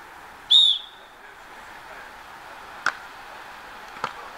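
Referee's whistle, one short, loud blast about half a second in, signalling the serve. About two seconds later comes the sharp smack of the volleyball being served, and another hit a second after that.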